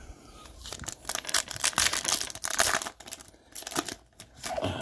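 Trading card pack wrapper being torn open, with a run of irregular crinkling and tearing crackles.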